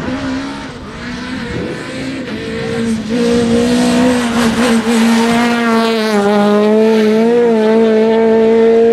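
Peugeot 208 R2 rally car's naturally aspirated 1.6 VTi four-cylinder engine held at high revs on a rally stage. The pitch stays nearly steady with slight wavers, and it gets much louder about three seconds in as the car closes on the microphone.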